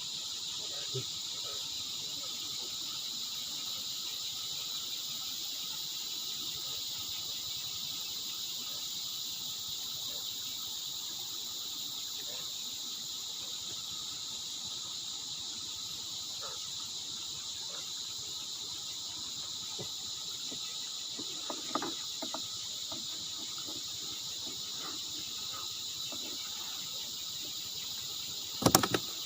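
Steady chorus of insects such as crickets, a continuous high buzzing, with a few faint handling sounds in the second half and a sharp knock near the end.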